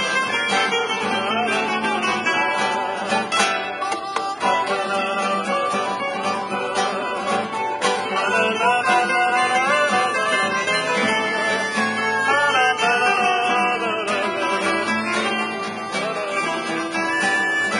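Live acoustic trio playing an improvised country-style instrumental: two acoustic guitars accompany while a harmonica carries a wavering, bending melody line.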